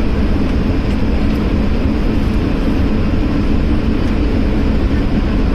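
Steady engine and airflow noise heard inside the cabin of an Airbus A220-300 airliner, with its Pratt & Whitney PW1500G geared turbofans running. It is a constant, deep, even rumble with no change in pitch or level.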